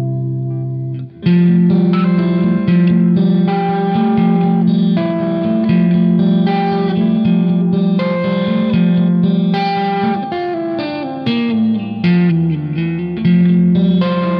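Prog rock music led by electric guitar through effects. A held chord dies away, and about a second in a busy run of picked notes starts, with a falling line about two-thirds of the way through.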